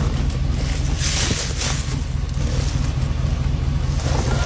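An engine running steadily: a low, even rumble with a hiss over it.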